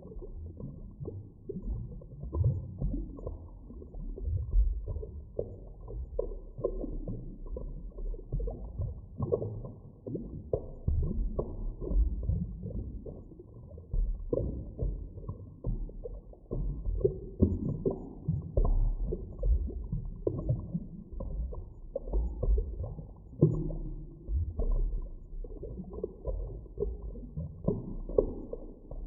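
Deep underwater ambience: a steady, muffled low rumble with irregular soft thuds and swells, with nothing heard above the low range.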